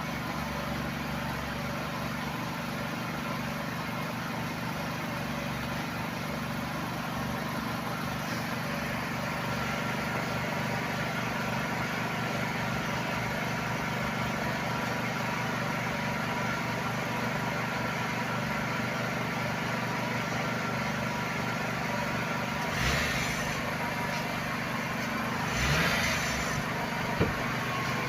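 2008 Honda CR-V engine idling steadily, running smoothly on a newly replaced throttle body. Near the end come two short bursts of handling noise and a single sharp click.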